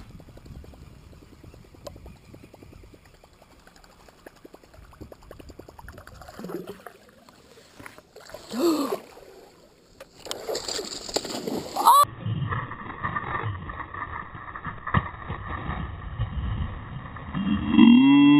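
Water lapping and small knocks around a fishing boat, with brief voices. Near the end a musky strikes right beside the boat with a loud splash and a shout.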